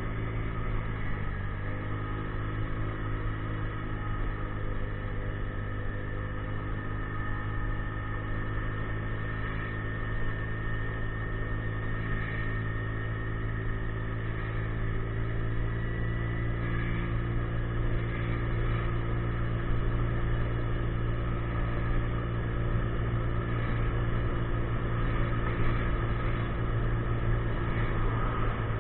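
A 50cc scooter's engine running with a steady drone, dipping briefly about a second in and dropping in pitch near the end.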